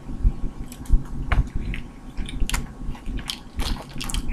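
Eating crawfish: wet chewing and biting, with irregular sharp clicks and cracks as the shells are broken and peeled.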